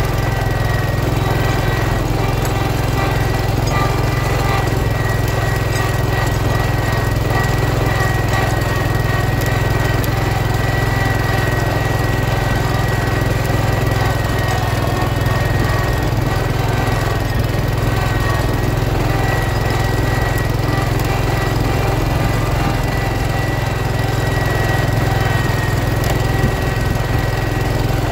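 1971 John Deere 140 H3 garden tractor's single-cylinder Kohler engine running steadily under load while pulling a sleeve-hitch moldboard plow through the ground.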